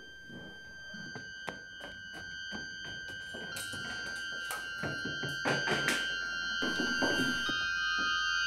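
Background music of held keyboard tones, more notes joining and growing louder, with scattered thuds.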